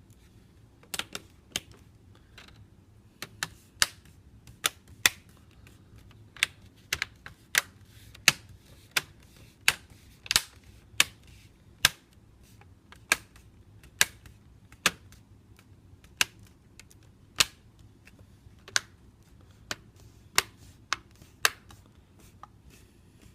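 Plastic screen bezel of a Lenovo L570 laptop being pressed back on, its clips snapping into place one after another. The snaps come as a long series of sharp clicks, irregularly spaced, about one or two a second.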